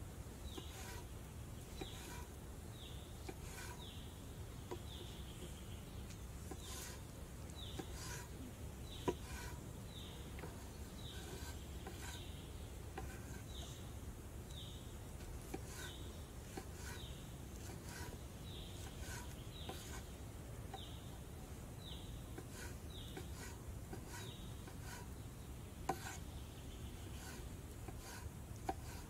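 Knife slicing a tomato on a wooden cutting board: soft cuts and taps of the blade on the board, two sharper knocks partway through and near the end. In the background a short falling chirp repeats about once a second.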